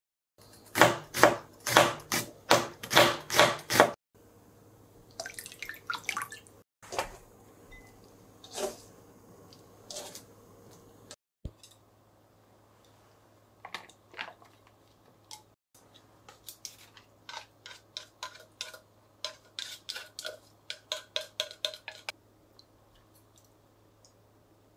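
Kitchen food-prep sounds: a run of loud, regular strokes about three a second for the first few seconds, then quieter clatter of utensils and a plastic storage container being handled, and a quick series of clicks near the end.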